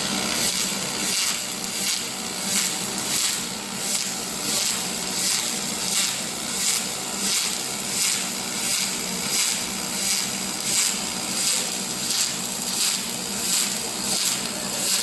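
Robotic welding arc on aluminum, hissing steadily and swelling in a regular rhythm about every two-thirds of a second.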